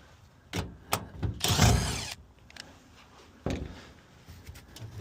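Handling noise from the metal cabinet of a gas pack furnace: a couple of sharp clicks, a brief scraping burst about a second and a half in, and another click a couple of seconds later.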